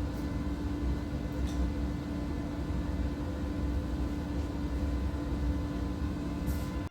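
Steady machine hum with a constant low drone over a hiss, with a few faint clicks.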